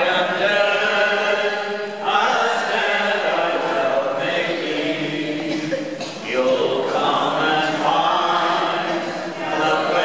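A small mixed group of men and women singing a song together unaccompanied, in phrases of long held notes about two seconds each.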